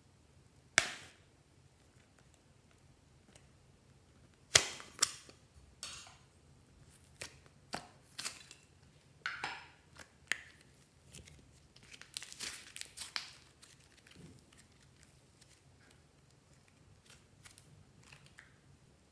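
Plastic slime container handled and opened, with a sharp click about a second in and another about four and a half seconds in, then thick slime pressed and pulled out of it in a run of short sticky pops and squishes until about thirteen seconds in, faint after that.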